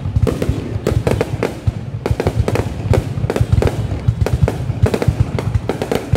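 Aerial fireworks bursting overhead: a loud, rapid, irregular run of bangs and crackles, several a second.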